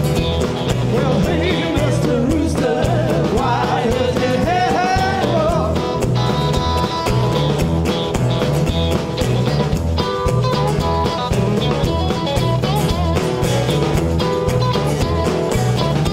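Live band playing a bluesy rock song: acoustic and electric guitars, bass guitar and drum kit keeping a steady beat, with a lead line bending up and down in pitch over the first few seconds.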